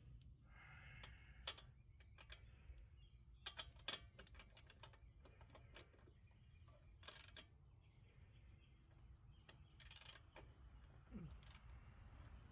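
Faint, scattered clicks and clinks of metal hand tools, a socket being fitted to take out a lawn mower's spark plug, with a few short scraping rustles.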